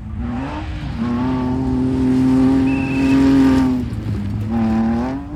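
A rally car's engine at high revs as the car passes on a gravel stage. The note holds high and steady, dips briefly near four seconds in, then climbs again.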